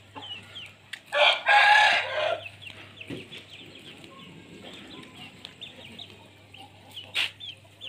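An Aseel rooster crowing once, a loud crow a little over a second long that starts about a second in. Small birds chirp faintly throughout, and there is a short sharp click near the end.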